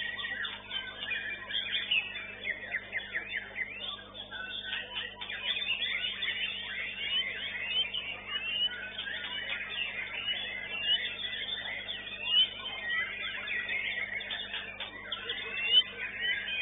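White-rumped shamas (murai batu) singing in contest, several at once: a dense, unbroken run of quick whistled notes, trills and pitch glides. A steady low hum sits underneath.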